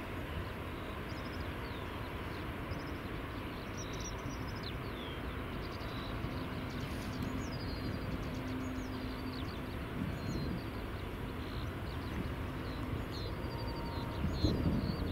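Small songbirds chirping, with short high falling whistles about every second, over a steady low rumble.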